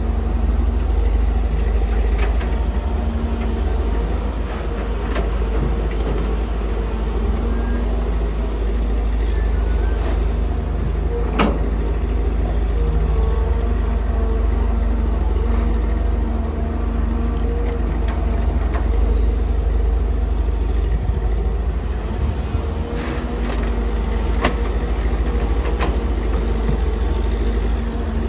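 Kobelco SK250 excavator's diesel engine running under load as it digs soil and swings to load a dump truck. A sharp knock comes about eleven seconds in, and a few fainter knocks near the end.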